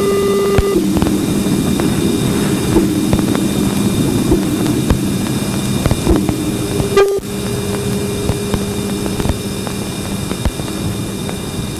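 Sonified spacecraft radio and plasma-wave recording: a dense crackling hiss with steady droning tones and faint high whines, broken by a brief click and dropout about seven seconds in.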